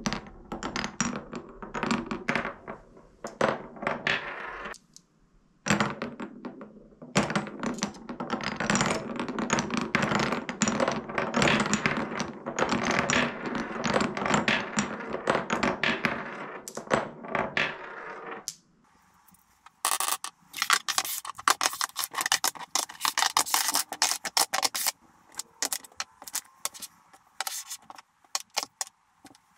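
Glass and steel marbles rolling and dropping through the channels and tunnels of solid beech Cuboro marble-run blocks: a steady rolling rumble full of small clicks. About two-thirds in it gives way to a thinner, rapid clatter of the wooden blocks being handled and set down.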